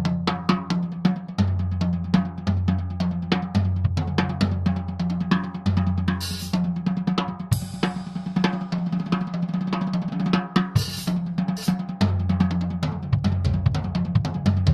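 Tama Starclassic Walnut/Birch drum kit played in a busy groove: fast snare, bass drum and hi-hat strokes, with cymbal crashes about six, seven and a half, and eleven seconds in. Underneath runs a sustained low note that changes pitch every second or two.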